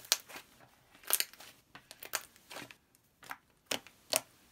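Red butter slime, made from Model Magic clay with a borax activator, being kneaded and squished flat by hands, giving a string of sharp, irregular crackles and pops with short quiet gaps between them.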